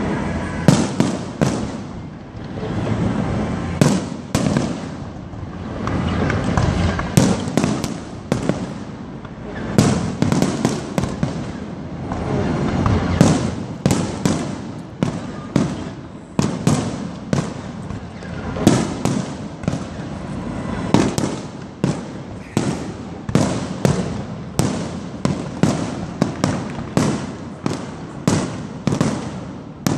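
Fireworks display: aerial shells bursting in a continuous barrage, sharp bangs one after another with a rumbling echo between them. The bangs grow more regular in the second half, roughly two a second.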